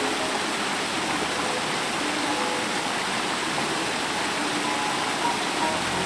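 Small mountain creek cascading over rocks into a pool: a steady rush of white water.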